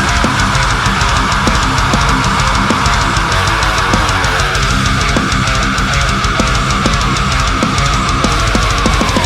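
Heavy rock music with distorted electric guitar and a steady drum beat.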